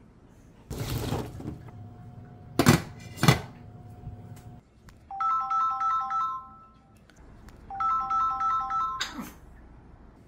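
A short rustle, then two sharp knocks a little under a second apart, followed by a phone ringtone: a short stepped electronic melody that plays twice.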